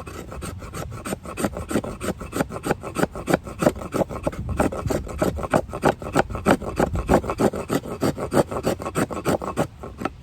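Steel knife blade scraping wood in quick, repeated strokes, about four or five a second, shaving off fine tinder for a fire.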